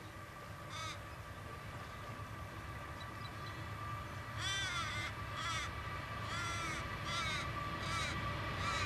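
A crow cawing: one caw about a second in, then a run of five or six caws in the second half. Underneath, an approaching train's low rumble and steady hum grow gradually louder.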